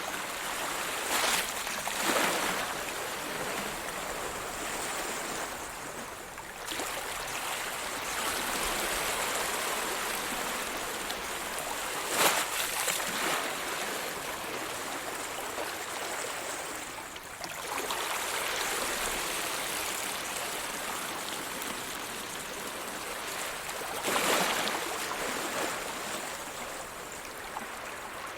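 Ocean waves washing in as a steady hiss of foaming water, with a handful of louder breaks spaced several seconds apart.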